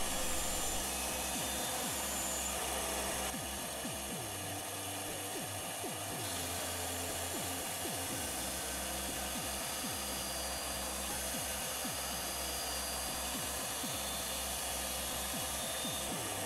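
Bandsaw running steadily while its blade cuts a curve through a pine block.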